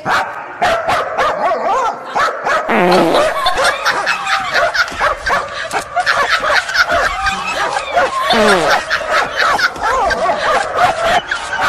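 A dog barking and yipping repeatedly, in many short pitched calls with a few falling whines.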